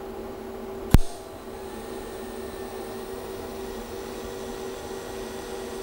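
TIG welding arc on aluminized mild steel exhaust pipe, fusion welded without filler. The arc strikes with one sharp crack about a second in, then runs as a steady hiss and buzz over the welder's hum.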